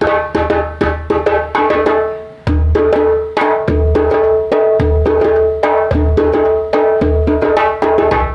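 Djembe drumming by hand: deep bass strokes about once a second mixed with ringing tone strokes and sharp slaps. A few loose strokes at first, then a steady rhythm about two and a half seconds in.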